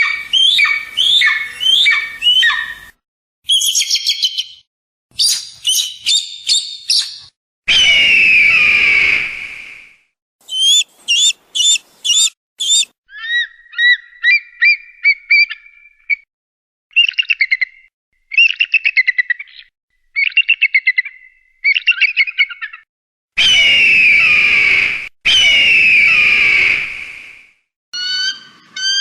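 Eagle calls: bursts of rapid, high-pitched chirping notes alternating with a few long, falling screams. The bursts start and stop abruptly with dead silence between them, like separate recordings spliced together.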